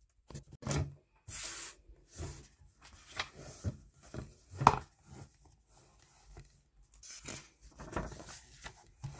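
Paper being handled on a desk: a run of short rustles, scrapes and taps of sheets, with a longer half-second rustle about a second and a half in and a sharp tap near the middle.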